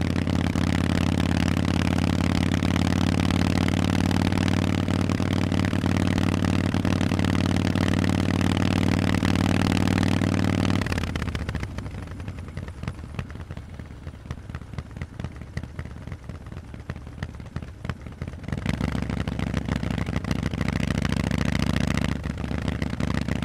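Harley-Davidson Forty-Eight's air-cooled V-twin running through loud Vance & Hines exhausts, a steady engine note for about ten seconds. It then falls much quieter for several seconds and comes back strongly near the end.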